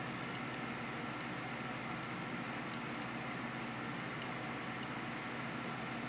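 Faint, irregular small clicks from a Marathon SAR diver's watch (ETA 2824 automatic movement) as its crown is turned and the date advances, over a steady background hiss.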